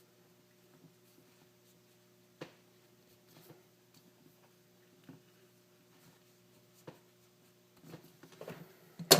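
Faint, scattered clicks and rustles of tape and thin wires being handled, with a few sharper clicks and a louder knock near the end.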